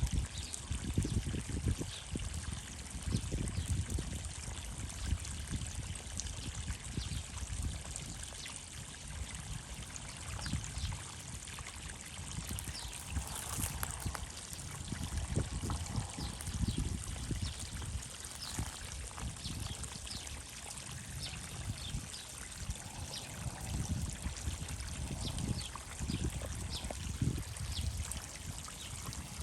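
Steady trickling of running water, with irregular low rumbling surges throughout.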